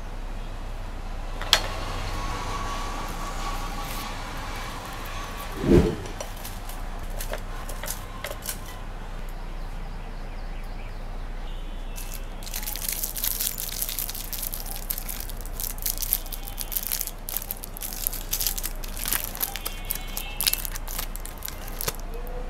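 Wrapped chocolates dropping into a glass bowl: a sharp clink and the glass ringing for a few seconds, then a dull thump. From about halfway on, foil candy wrappers crinkling and rustling as the chocolates are handled and unwrapped.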